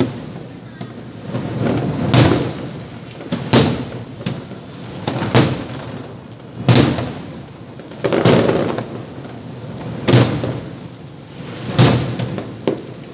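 Aerial fireworks bursting in a steady series: a heavy boom about every one and a half to two seconds, each trailing off in a rolling rumble, with a few small sharp cracks in between.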